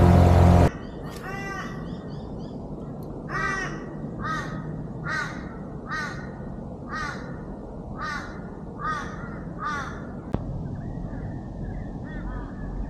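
Small boat outboard motor running at speed, cutting off suddenly under a second in. Then a bird calls about eight times in an even series, roughly one call a second.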